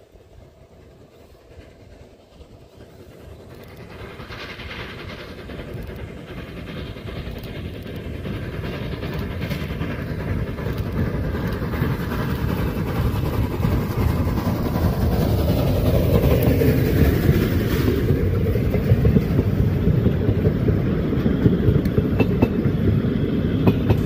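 Narrow-gauge steam locomotive hauling passenger coaches, growing steadily louder as it approaches and running loud and close as it and its coaches pass by.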